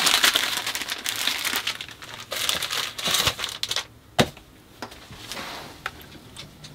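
Plastic wrapping of a travel-size tissue pack crinkling and rustling as it is handled, with one sharp click about four seconds in and quieter rustles after.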